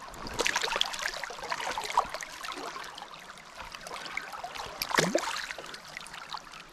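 Shallow river current trickling and splashing around a hand as a small trout is held in the water and let go. There is a flurry of small splashes in the first second and a brief louder rush about five seconds in.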